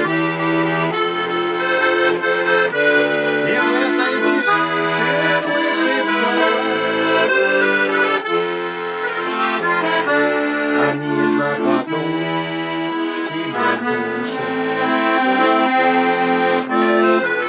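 Accordion playing an instrumental melody over sustained bass notes and chords, without singing.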